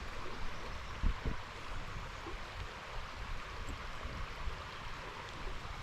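Shallow creek water running steadily over rocks, an even rushing hiss, with a few low bumps on the microphone about a second in.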